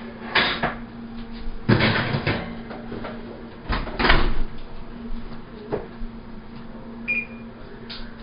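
A metal muffin tin clatters as it is set down on a glass-top electric range, then the oven door is pushed shut with a knock about four seconds in, followed by a few lighter knocks. A brief high tone sounds near the end, over a steady low hum.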